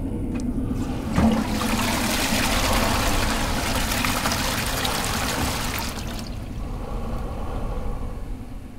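Toilet flushing: a short knock about a second in, then a loud rush of water swirling down the bowl, easing after about six seconds to a quieter gurgling wash as the bowl drains.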